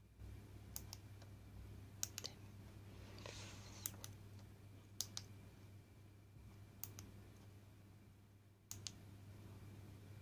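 Sharp clicks of buttons being pressed, about one a second, while the TV controller board's input-source menu is stepped through. A short rustle about three seconds in, and a low steady hum underneath.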